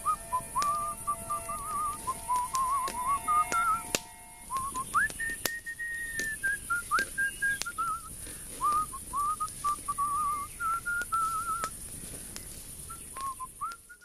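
A person whistling a wandering tune in long phrases, with a short break about four seconds in, over the crackle of a campfire.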